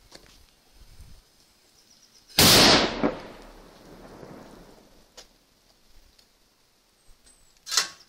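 A Mefisto Manna firecracker exploding about two and a half seconds in: one very loud, sharp bang followed by a long echoing rumble that fades over the next two to three seconds. A second short, sharp crack comes near the end.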